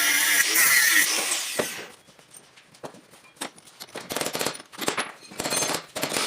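A high-pitched power tool motor runs, then spins down and stops about a second and a half in. Sharp clicks and knocks follow, then bursts of rough scraping near the end.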